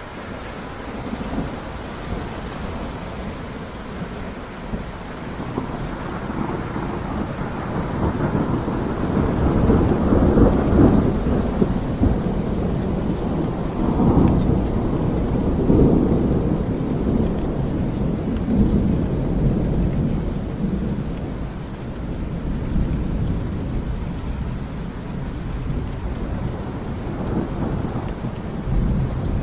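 Steady rain with a long roll of thunder that builds about a third of the way in, rumbles loudest through the middle, and fades away.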